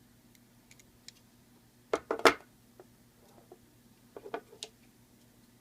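Metal clicks and clacks from a Leatherman Wave multitool as its scissors are pried out of the handle: a few light ticks, a pair of sharp clacks about two seconds in, and another run of clicks near four seconds.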